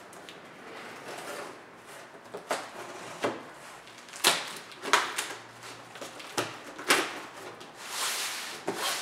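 A butter knife slitting the packing tape on a cardboard box, with the tape tearing and the cardboard scraping. It comes as a string of short, sharp rasps, the loudest from about four seconds in, and a longer rasp near the end.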